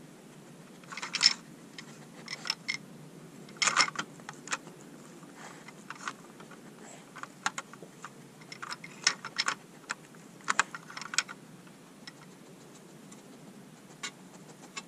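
Hard plastic clicking and clattering in irregular clusters as a dog pushes the sliding rods of a bone-shaped interactive treat puzzle with its nose to uncover the treat pots. The loudest clatters come about a second in and around nine to eleven seconds.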